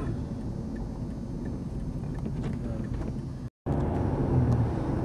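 Steady low road rumble of a moving car, broken by a split second of silence about three and a half seconds in.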